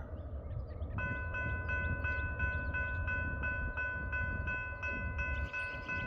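Railroad grade-crossing bell starting up about a second in and dinging evenly, about three times a second: the crossing signals have activated for an approaching train. A low rumble runs underneath.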